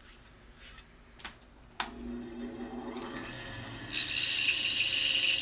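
A bandsaw is switched on with a click, and its motor and wheels hum as they come up to speed. About four seconds in, the blade starts cutting into a solid wooden box blank, giving a loud, high-pitched sawing noise.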